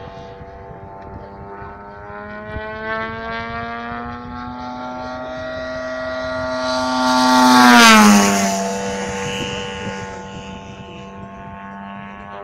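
Radio-controlled model airplane's engine and propeller making a flyby: the steady engine note grows louder, peaks about eight seconds in with a sharp drop in pitch as the plane passes, then fades away.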